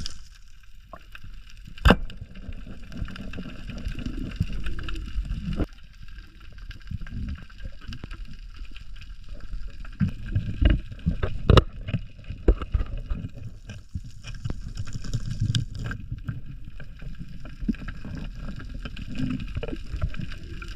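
Water gurgling and sloshing with scattered sharp knocks, the loudest about two seconds in and again near the middle.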